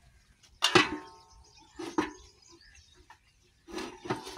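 Steel pump stand knocking against iron rails as it is shifted into place: a loud metal clank less than a second in that rings briefly, a sharp knock about two seconds in, and a few more knocks near the end.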